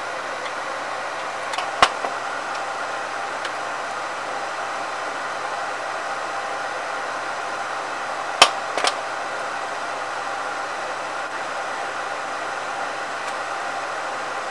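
Steady fan-like rushing noise with a faint hum in it, broken by a sharp click about two seconds in and a louder double click around eight seconds in.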